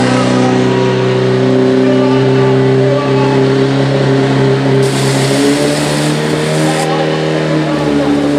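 Portable fire pump engine running hard at high, fairly steady revs, pumping water through the hose lines to the nozzles. A broad hiss joins for about two seconds just past the middle.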